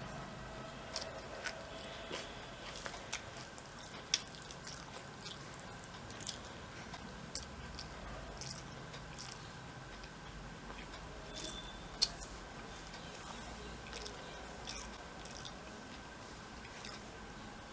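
A person eating close to the microphone: soft chewing with irregular wet mouth clicks and smacks, over a faint steady high hum.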